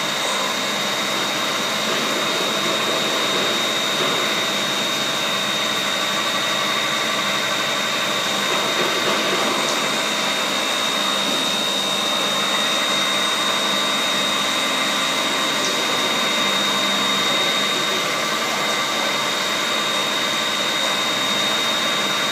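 CNC milling machine cutting herringbone (double-helical) gear teeth into a metal blank on a rotary axis: a steady machining noise with a constant high whine over it.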